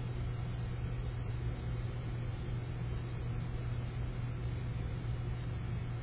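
A steady low hum with an even hiss behind it, unchanging throughout; no bird calls stand out.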